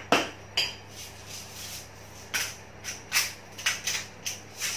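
Kitchen items being handled on a countertop: a string of short, sharp clicks and knocks at uneven intervals, as seasoning containers and utensils are picked up and set down.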